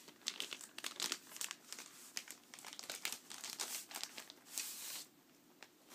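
Packaging wrap crinkling and rustling as a vinyl record is unwrapped, in irregular crackles that die down about a second before the end.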